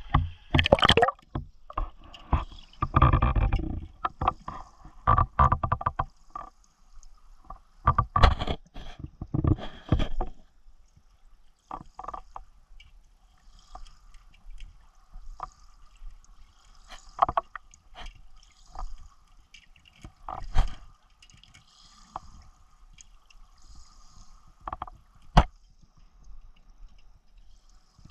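Water sloshing and splashing around a camera at the surface. From about ten seconds in comes the muffled sound of the camera underwater: scattered sharp clicks and knocks over a faint steady hum.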